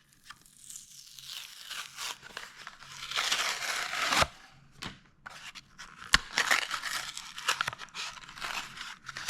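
Packaging of a Matchbox die-cast toy car being torn open by hand: tearing and crinkling, loudest about three to four seconds in, with a few sharp clicks.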